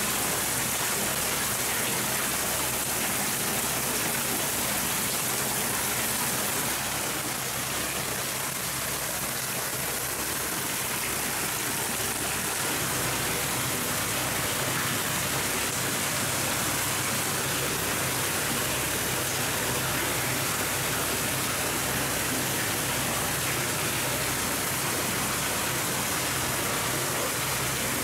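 Hot spring water pouring steadily from a spout into a communal bath, a continuous splashing rush that eases slightly about seven seconds in.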